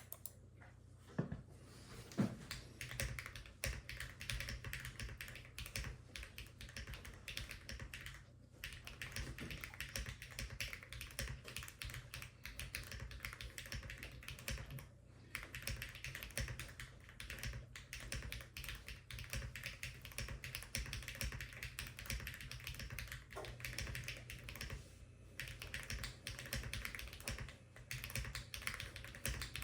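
Continuous typing on a Lucky 65 V2 mechanical keyboard with HMX Film KD200 switches and no internal foam: a rapid stream of keystroke clicks and clacks, with a few short pauses. A couple of louder knocks come about a second or two in.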